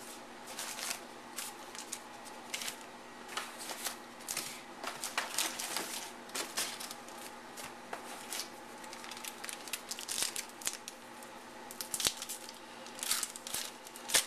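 Foil wrappers of 2011 Topps Allen & Ginter baseball card packs crinkling and rustling in the hands in irregular bursts as a pack is torn open.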